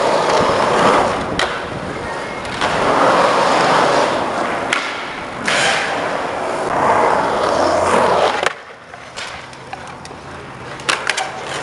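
Skateboard wheels rolling on concrete, swelling and fading three times as the board rides through the skatepark, with a few sharp clacks of the board. The rolling stops suddenly about eight seconds in, leaving a quieter stretch with a few light clicks near the end.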